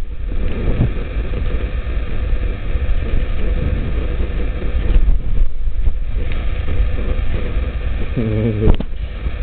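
Strong wind buffeting the microphone, a loud, steady rumbling noise.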